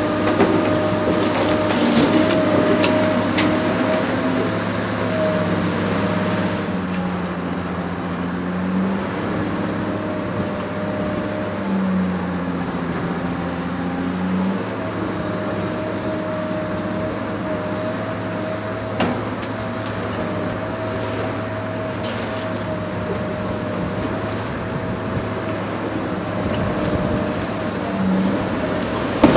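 Large demolition excavator's diesel engine running steadily, its pitch shifting up and down a few times as it works, with a few sharp knocks.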